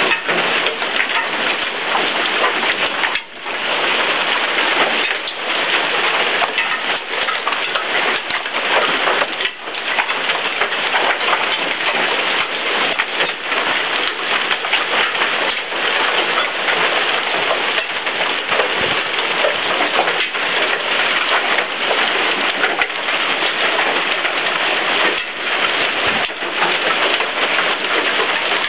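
Heavy rain mixed with hail pelting down during a severe storm: a dense, steady hiss packed with sharp ticks from individual strikes.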